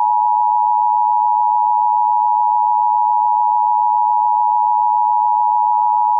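Emergency Alert System attention signal: the two-tone alert (853 and 960 Hz sounded together) of a required monthly test, held steady without a break.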